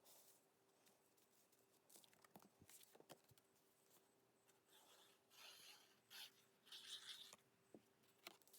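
Near silence with faint rustling and a few light taps of cardstock being handled and pressed together, the rustling mostly in the second half.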